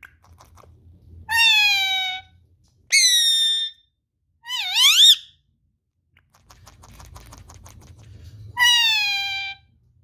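Indian ringneck parakeet giving four short, high-pitched calls, most sliding down in pitch and then holding, one wavering upward. A stretch of rapid soft ticking comes between the third and fourth calls.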